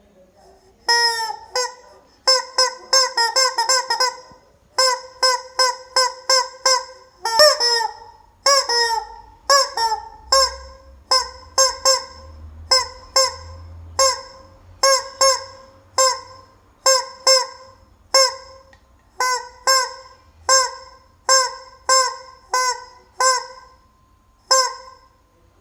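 Rubber chicken squeaked over and over, each squeeze a short honking squawk, some gliding down in pitch. The squawks come in quick bunches at first, then settle into a steady run of about one and a half a second.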